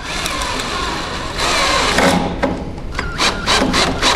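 Cordless drill driving screws into a wooden board: a steady run of the motor and screw grinding into the wood, then a quick run of short bursts near the end.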